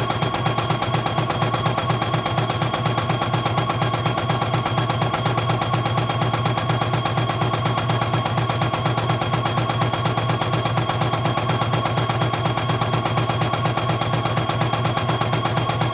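CNY E900 portable computerized embroidery machine stitching out a design, its needle clattering at a rapid, even rate over a low motor hum.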